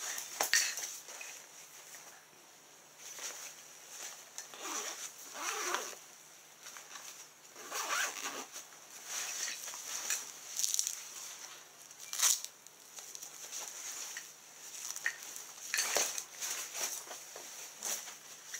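A fabric fishing vest being handled: irregular rustling and scraping of the cloth, with zippers worked on its pockets and a few sharp clicks.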